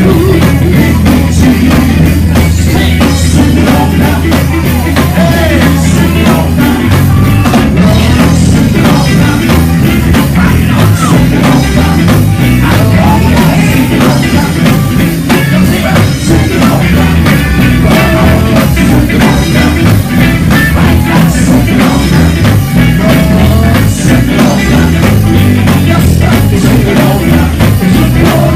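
Gospel quartet music played live and loud: a lead singer on a handheld microphone with other voices joining, over electric guitar, drum kit and heavy bass notes, all through the church PA.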